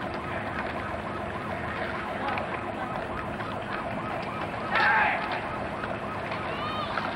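Distant emergency-vehicle siren in a fast yelping wail, rising and falling about three to four times a second, swelling louder about five seconds in.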